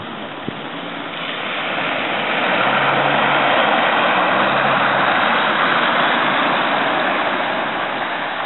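Car driving through deep standing water on a flooded road, its tyres throwing up a steady hiss of spray with a faint engine hum under it. The hiss builds about a second or two in and then holds loud.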